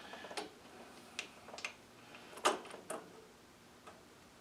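A few scattered light clicks and taps from a bolt and hand tools being worked while threading the bolt into the small-engine carburetor mounting. The sharpest click comes about two and a half seconds in.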